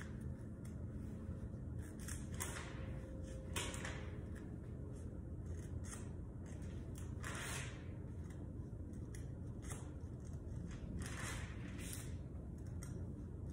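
Pages of a Bible being turned by hand several times, each a short papery swish, over a steady low background hum.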